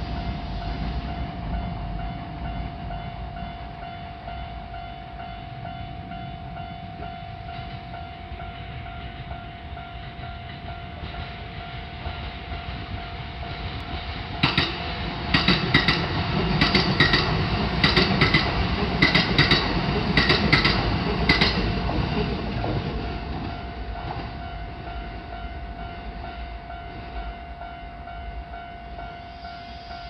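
Kintetsu electric train passing over a level crossing. For about seven seconds from around the middle, its wheels click in pairs over the rail joints above a rising rumble. A steady tone from the crossing's warning bell rings throughout.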